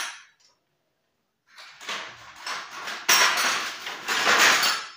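Steel T-handle wrench turning on a motorcycle's 14 mm rear axle nut, a metallic clinking and scraping as the nut is worked loose. It starts about a second and a half in and gets louder about three seconds in.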